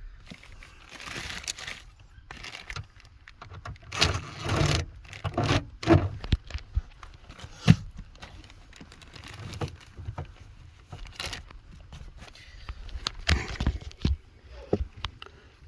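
Metal seatbelt hardware and loose bolts being handled: scattered clinks and rustles, with several sharp clicks.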